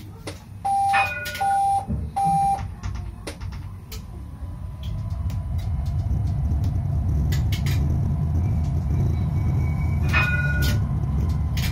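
A tram's warning beeps sound in a short series of pitched tones, then the tram pulls away with a low running rumble that builds and holds. Light clicks come from the wheels and rails, and a brief two-tone chime sounds near the end.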